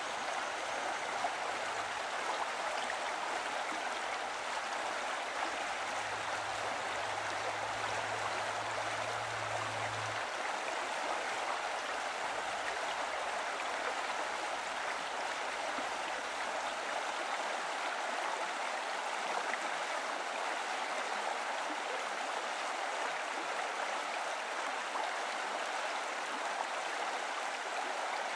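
Running water flowing steadily, an even rushing sound like a stream.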